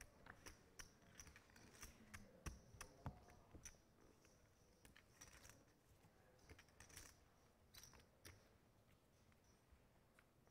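Faint, irregular clicking of poker chips and cards being handled at the table, thinning out near the end.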